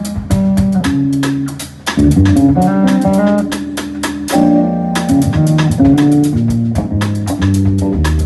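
Live instrumental trio of electric bass guitar, drum kit and Yamaha electronic keyboard playing together: a moving bass line over steady drums, with keyboard chords on top. The cymbals drop out briefly about halfway through while a keyboard chord is held.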